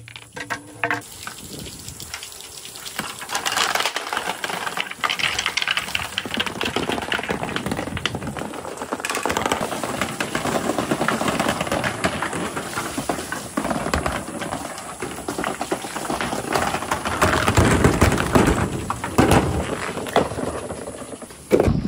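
A mass of marbles rolling and clattering down a marble run: a dense, continuous rattle of countless small clicks that builds about three seconds in and grows loudest near the end.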